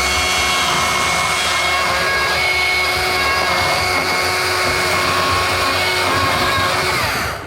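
A motor-driven power tool runs steadily at full speed with one constant pitch. It spins down and stops near the end.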